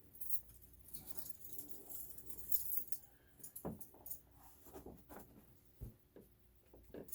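Handling noises: a scattered run of small clicks, taps and rustles as parts and cables are moved by hand.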